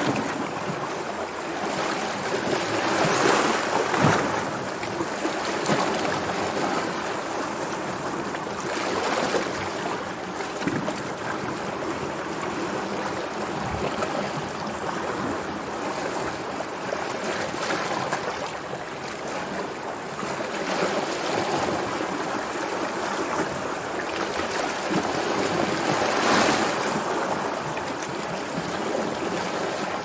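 Sea waves breaking and washing in a continuous rush of surf, swelling louder now and then, most strongly about three seconds in and again near the end.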